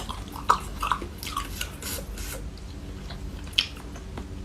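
Biting and chewing a crispy fried chicken drumstick close to the microphone: irregular crackly crunches, with a sharp one about half a second in and another late on.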